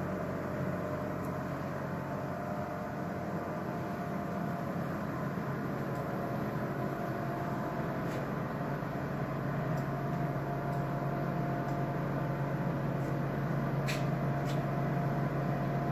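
Steady machine hum with a constant low drone, and a few faint ticks near the end.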